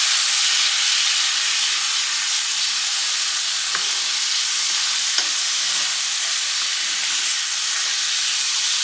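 Tomatoes, spinach, garlic and red bell pepper strips sizzling steadily in bacon fat in a pan, with two light clicks about four and five seconds in.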